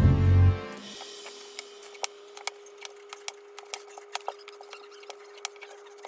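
Background music cuts off within the first second. Then come faint, irregular small clicks and ticks, a few a second, over a low steady hum.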